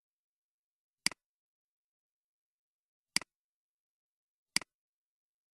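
Three sharp computer-mouse button clicks, the first about a second in and the next two roughly two seconds and a second and a half later, against dead silence.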